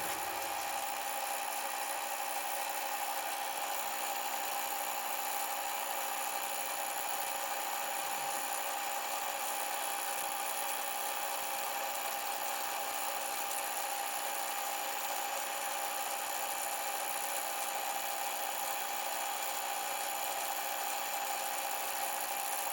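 Milling machine running steadily with a fly cutter taking a facing pass across a metal plate, with a steady motor whine.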